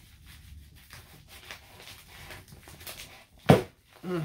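Packaging rustling and scraping as a tightly wrapped bottle is worked out of its box. Near the end, a loud, short strained grunt of effort, followed by a shorter one.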